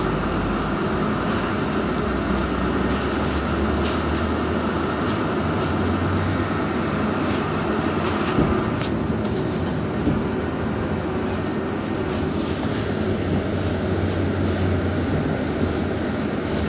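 Cabin noise of a UTTZ-6241-10-02 'Gorozhanin' trolleybus under way: the low hum of its electric drive and the rumble of the tyres and body. A steady higher whine fades out about halfway through.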